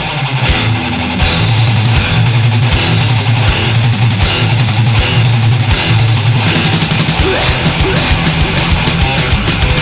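Heavy metal band track: distorted electric guitar riff with bass, and the full band with drums and cymbals coming in about a second in and playing on loud and steady.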